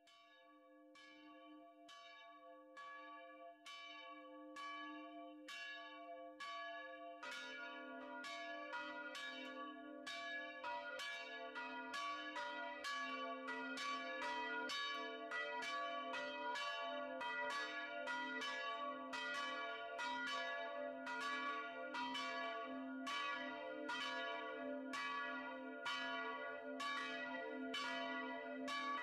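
Church bells ringing in a tower. One bell strikes steadily, about three strokes every two seconds, and about seven seconds in a second, lower bell joins so the strokes overlap. The ringing grows louder over the first several seconds.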